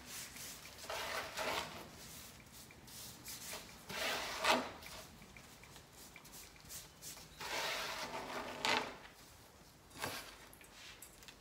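Gloved hands rubbing a honey Dijon and bourbon mustard base over a raw pork butt: soft wet rubbing and glove rustle in a few separate swipes, the strongest about four and a half and eight seconds in.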